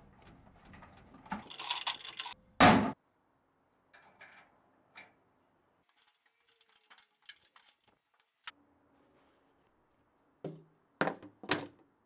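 Hand tools working on metal parts: a scrape, then one loud knock about two and a half seconds in. Later comes a run of small clinks as a box-end wrench turns nuts on bolts, with a few sharper knocks near the end.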